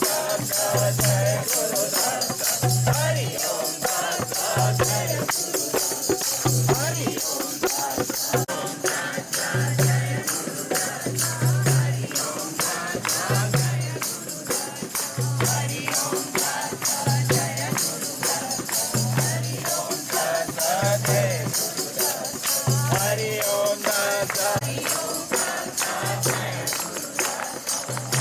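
Devotional group singing with jingling hand percussion and a low drum beat recurring about every two seconds.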